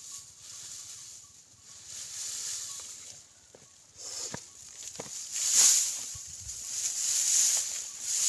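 Dry straw rustling and crackling as a large armful is gathered, carried and laid on the ground, with scattered snaps of stems, busiest in the second half.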